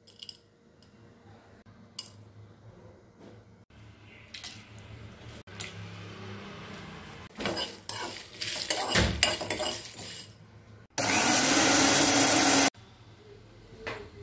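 Whole dry spices (coriander seeds, cumin, peppercorns, dried red chillies) dropped into a dry metal pan and stirred as they roast, rattling and scraping on the pan, loudest from about seven to ten seconds in. Near the end comes a loud, steady whirring noise lasting nearly two seconds, starting and stopping abruptly.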